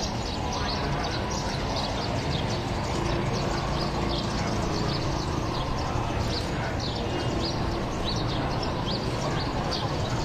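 Many birds chirping in quick, short calls over a steady low rumble of outdoor noise.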